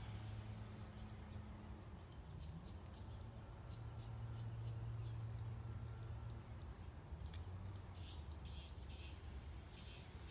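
Faint outdoor background: a steady low hum with scattered short, high chirps, more of them in the second half.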